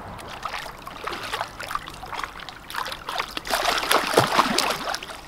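Splashing and trickling water as a large common carp is released into the lake margin, with a louder flurry of splashing from about three and a half seconds in as the fish kicks away.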